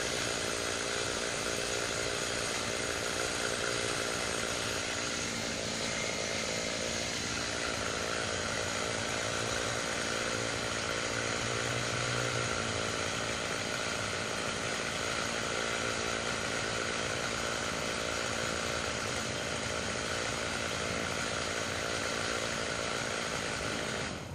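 Chainsaw running steadily at an even pitch.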